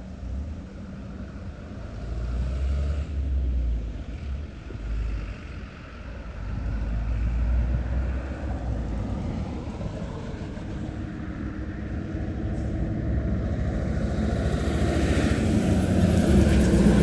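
A road or rail vehicle approaching, its noise growing steadily louder over the last few seconds, over an uneven low outdoor rumble.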